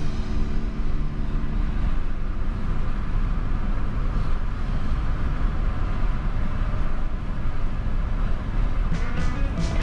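Steady low rumble of road and engine noise from a car driving at speed.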